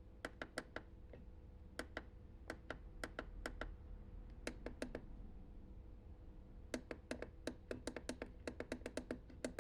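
Small plastic buttons clicked over and over in quick irregular runs, with short pauses between runs, as the LED lights are cycled through colours. A faint steady hum runs underneath.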